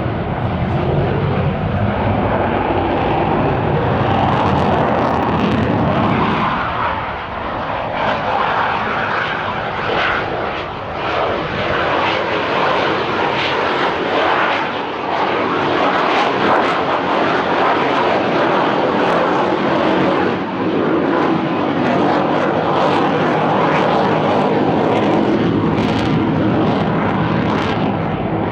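JAS 39C Gripen fighter jet flying a display, its jet engine a loud continuous rushing noise. The deep rumble gives way to a higher hiss about six seconds in as the aircraft passes.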